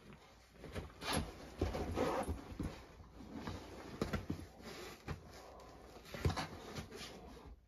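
A Great Dane and a small brindle dog play-wrestling on an upholstered armchair: irregular scuffling and thumps of bodies and paws, with the sharpest knock about six seconds in.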